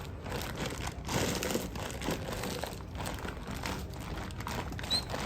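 Crinkling and rustling of large dog food bags being handled and moved around.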